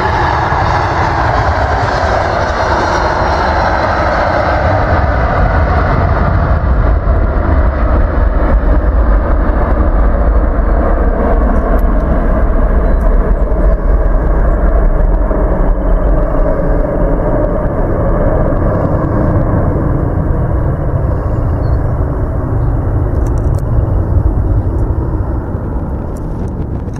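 British Airways Boeing 767-300ER's Rolls-Royce RB211 engines at takeoff thrust as the jet accelerates and climbs out. A loud jet noise with a high whine in the first few seconds gives way to a deep rumble that peaks in the middle and then slowly fades as the aircraft departs.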